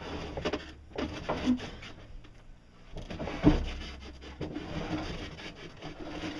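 Heavy wooden crate wrapped in plastic being shifted, scraping and rubbing with scattered knocks and a heavier thump about three and a half seconds in.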